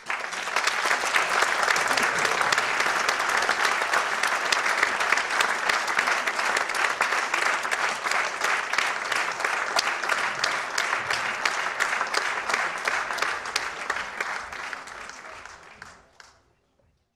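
Theatre audience applauding, starting suddenly as the lights go down and fading out near the end.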